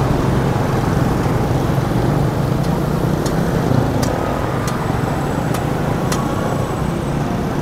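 Busy city street traffic: motorbike and car engines running in a steady rumble, with a handful of light, sharp ticks in the second half.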